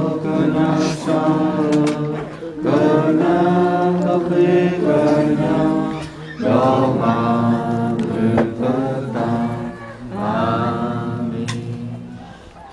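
A group of people singing together in long, held phrases, four phrases with short breaks between them, fading near the end.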